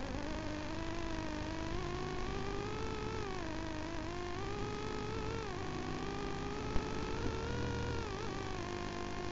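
KTM 950 Adventure's V-twin engine running under way on a gravel track, its note rising and falling with the throttle several times, over a steady low rumble. A single short knock about seven seconds in.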